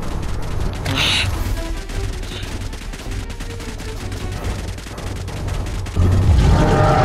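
Sci-fi blaster sound effect firing in a rapid crackling stream, with a sharper burst about a second in, over background film music. About six seconds in, a loud low rumble comes in and the music swells.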